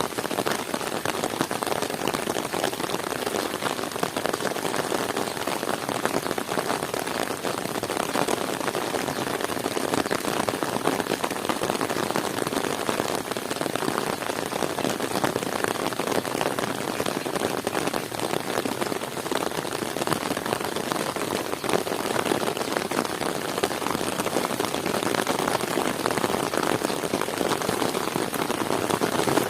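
Heavy rain falling steadily, a dense, even spread of countless drops with no let-up.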